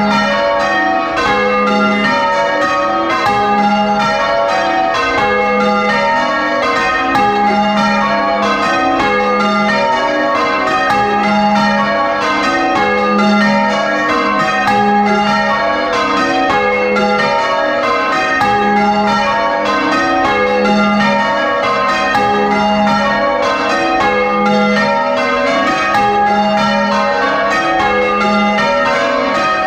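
A ring of six church bells, tenor 9 cwt in A♭, being rung full circle in an unbroken, even rhythm of strikes. It is heard close up inside the bell chamber, so the bells ring loud and overlap.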